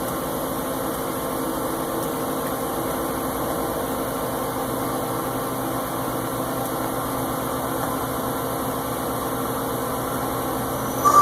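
Ikegai TUR 30L CNC lathe running with a steady mechanical hum. A short, loud high tone sounds just before the end.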